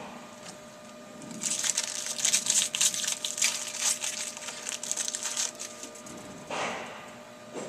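Foil wrapper of a Bowman Chrome card pack being torn open and crinkled, a dense crackle lasting about four seconds, followed by a short softer swish near the end.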